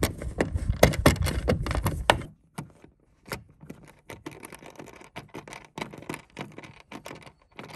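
Hand screwdriver turning a stainless steel screw into a threaded rivet on a plastic kayak hull to fasten a carry handle: a run of small metallic clicks and scrapes, dense for the first two seconds and then sparser.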